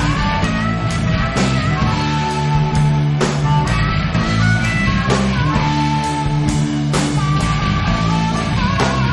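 Instrumental passage of a rock song: guitar playing held melody notes over a steady bass line and a regular drum beat.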